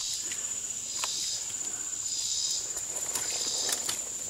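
Insects trilling steadily at a high pitch, with a second, lower buzzing call that repeats about once a second. A few light clicks of stones being handled come through, one about a second in and one near the end.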